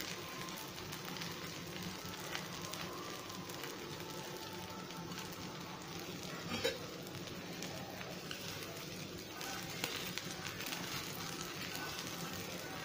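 Dosa frying in oil on a hot tawa, a steady soft sizzle as the flipped second side browns, with a couple of light clicks.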